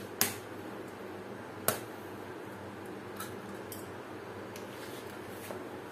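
An egg rapped sharply twice against the rim of a glass bowl to crack it, then a few faint clicks of shell, over a steady background hum.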